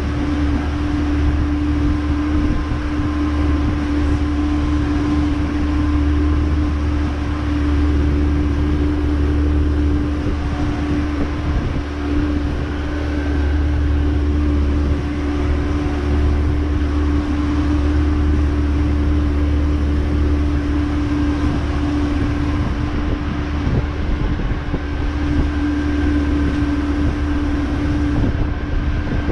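Haines Hunter 550C's engine running steadily at low speed, a constant hum with one held drone and no change in pitch.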